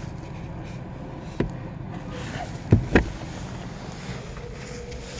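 A few dull knocks over a steady low rumble of outdoor background noise; the loudest two come close together about three seconds in.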